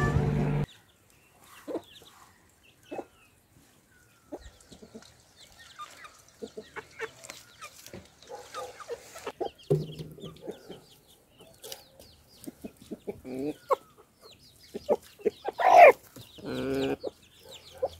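Free-ranging domestic chickens, a hen with her chicks and a rooster, clucking in short scattered calls while the chicks peep. One bird gives a louder call near the end. A louder pitched sound cuts off abruptly under a second in.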